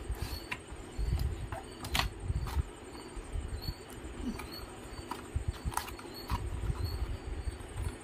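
Cardboard packaging of an Intel stock CPU cooler being opened by hand and its inner cardboard tray pulled out: uneven rustling and scraping of cardboard, with a few sharp taps and clicks.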